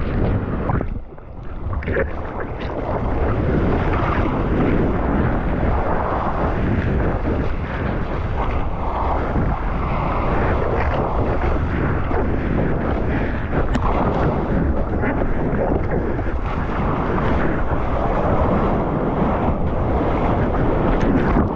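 Wind buffeting an action camera's microphone along with rushing surf water, a loud steady noise that drops briefly about a second in.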